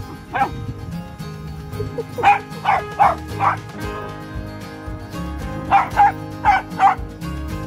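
A dog barking in short, sharp barks: one single bark, then two quick runs of four, over background music.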